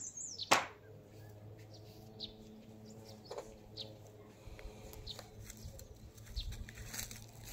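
Faint, scattered bird chirps in the background, a sharp click about half a second in, then a steady low hum. Soft low thumps come in the second half as the cat rolls and paws at a hand on the sofa.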